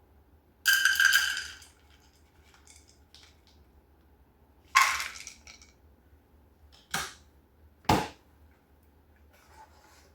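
Handling noises: a short ringing clatter about a second in, a scrape near the middle, then two sharp knocks about a second apart.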